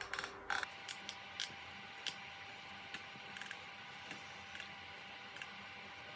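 Irregular light clicks and taps, several close together in the first second and then single ones every second or so, over a faint steady hiss.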